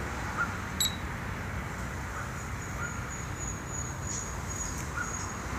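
A short electronic beep about a second in, as the touch-panel LED dimmer is pressed to switch on the LED strips driven by the repaired power supply board. After it a faint high-pitched whine comes and goes over a steady low background rumble.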